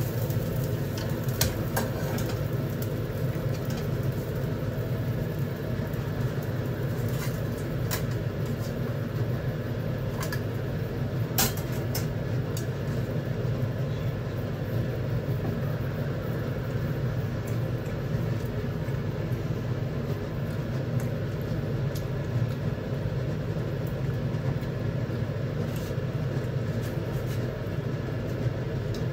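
Steady low mechanical hum from a kitchen stove running, with a few sharp clicks as chopsticks and metal tongs tap the wire grill rack over the gas burner.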